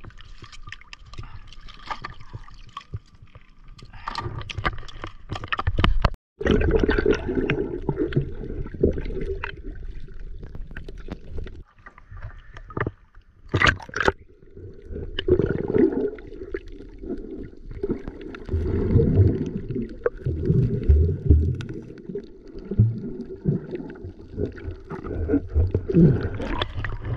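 Water splashing and knocking around a GoPro at the surface. After about six seconds the sound turns muffled and low as the camera is submerged, with gurgling water sounds as the swimmer moves.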